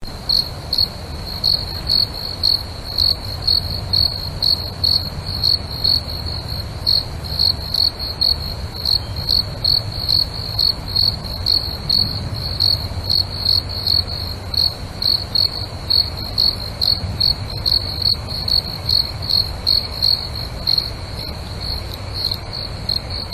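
Crickets chirping: a high, even chirp repeating steadily about two to three times a second, over a low background rumble.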